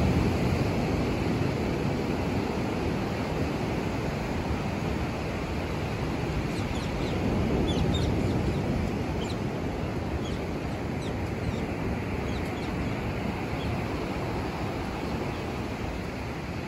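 Beach ambience: a steady rush of wind on the microphone and surf on the sand. In the middle come scattered short, high bird chirps.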